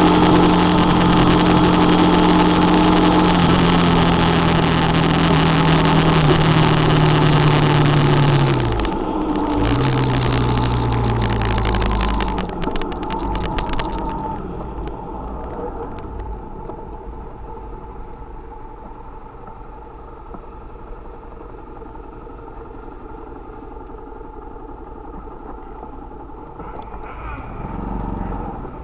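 Vehicle engine running at road speed with heavy wind rush; about nine seconds in the engine note drops as it slows, and from about fourteen seconds the sound is quieter. Near the end a car passes close by.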